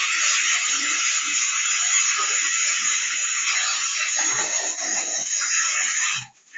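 Suction catheter aspirating a newborn's mouth and airway: a steady loud hiss of suction that cuts off suddenly near the end.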